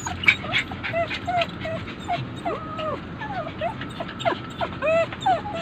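Poodles whining and whimpering, a rapid run of short high whines that rise and fall in pitch: distress at being left behind by their owner.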